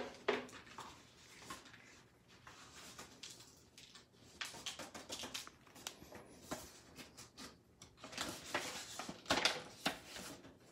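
Paper and card being handled: irregular rustling, crinkling and light taps as a folded greeting card and letters are opened and shuffled on a table, busiest near the end.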